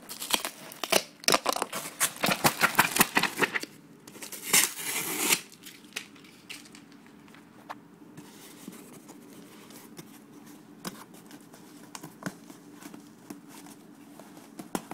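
Taped cardboard box being torn open by hand: a dense run of ripping and crackling for the first five seconds or so, then only scattered small clicks and scrapes over a faint steady hum.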